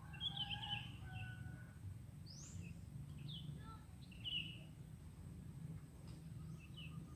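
Birds chirping now and then, in short chirps and one rising whistle, over a steady low background rumble.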